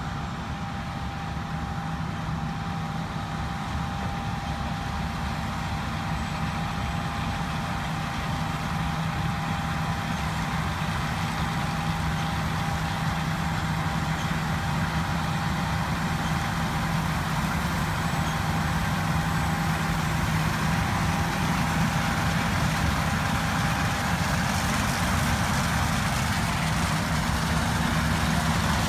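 John Deere S-series combine running at a steady working speed while harvesting wheat: a low engine drone with a thin, steady whine above it, slowly growing louder.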